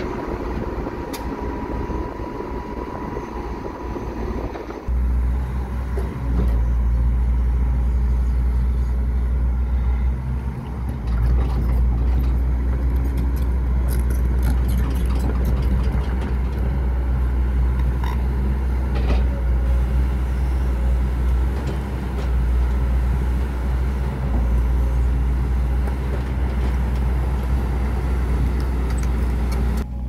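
A LiuGong road roller's diesel engine running, then, about five seconds in, a Volvo crawler excavator's diesel engine running close by with a steady deep hum. Scattered knocks and clatter of rock come as the bucket digs into the rubble.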